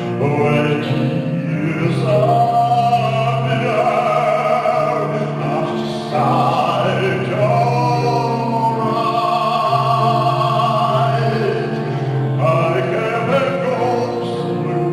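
Baritone singing a lyrical song with piano accompaniment, holding long notes with vibrato.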